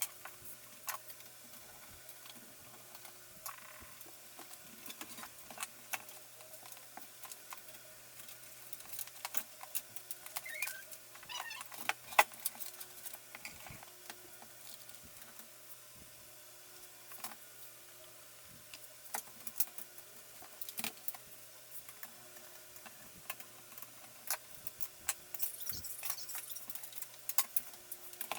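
Scattered light clicks, taps and small rattles of computer parts and screws being handled during a PC case build, over a faint steady hum. There is a brief wavering squeak about ten seconds in.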